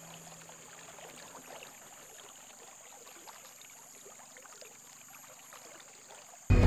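Faint outdoor noise with many soft crackling, rustling ticks. Near the end, loud music cuts in abruptly.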